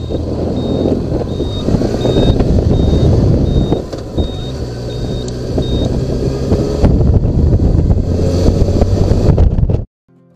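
Kawasaki motorcycle engine running under way, with heavy wind rush on the onboard microphone. A short high beep repeats about twice a second for the first three seconds. The engine pitch climbs late on before the sound cuts off suddenly near the end.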